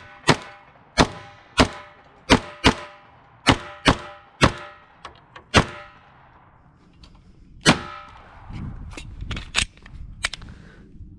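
Semi-automatic pistol fired rapidly in a practical-shooting stage: about ten loud shots over the first six seconds, several in quick pairs, then one more shot a couple of seconds later, followed by a few fainter pops.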